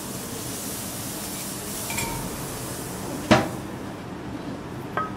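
Restaurant-counter background hiss with a faint ringing clink of crockery about two seconds in, one sharp knock a little after three seconds that is the loudest sound, and two small ringing clinks near the end.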